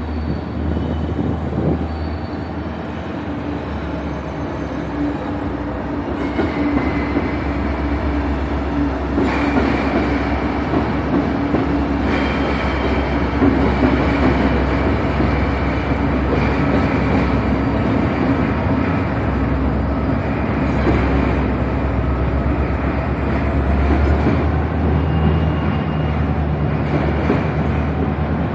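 Canadian National train running past: a steady diesel locomotive drone with the noise of wheels on the rails, loud and unbroken, and a thin high wheel squeal near the end.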